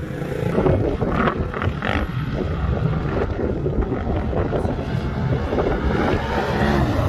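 Wind buffeting the microphone over side-by-side and ATV engines running as they race up a sand hill.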